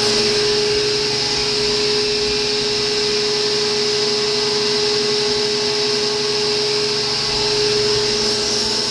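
Powermatic Model 65 table saw with its 3 horsepower motor running steadily at full speed with an even whine, just after being switched on. It runs smoothly.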